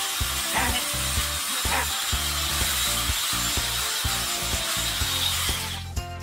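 Electric sheep-shearing clippers running and cutting through fleece, a steady buzzing hiss that stops just before the end. Background music with a beat plays underneath.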